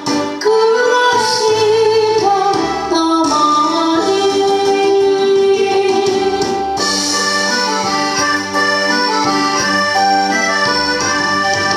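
Instrumental interlude of a karaoke backing track for a Japanese song, with a melody of long held notes over a band accompaniment.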